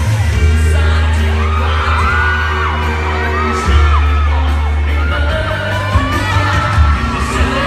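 Live pop music over a loudspeaker system, with a heavy bass line and a male voice singing, and fans screaming and whooping over it.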